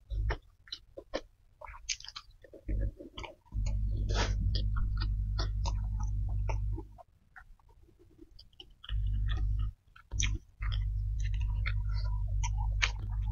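Close-miked chewing and mouth sounds of someone eating rice and salted fish by hand, with many small sharp clicks and crackles. A steady low hum starts and stops several times underneath.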